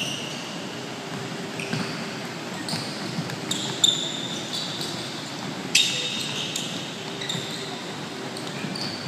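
Futsal ball bouncing, tapped and kicked on an indoor court floor, echoing in a large hall. About a dozen sharp hits with brief high squeaks, the loudest about four and six seconds in.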